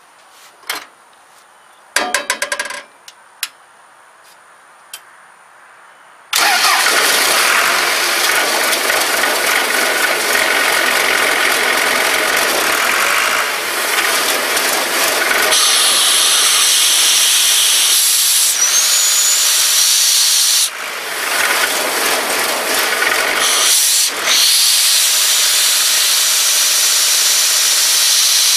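Ingersoll Rand 185 portable air compressor's John Deere diesel engine starting suddenly about six seconds in and then running loud and steady, after a few light clicks.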